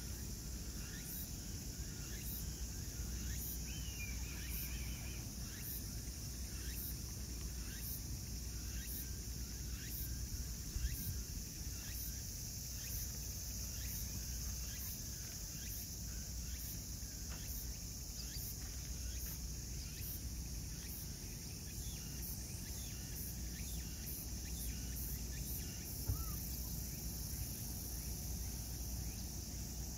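Outdoor ambience of a steady insect chorus, with a constant low rumble underneath. Two brief soft knocks stand out, about a third of the way in and again near the end.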